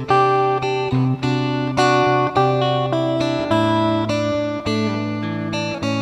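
Background music: a guitar playing strummed chords in a steady rhythm.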